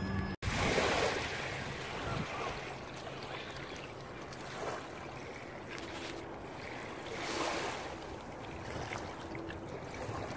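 Small waves washing in over a shallow, stony shore, rising and falling every few seconds, with wind buffeting the microphone.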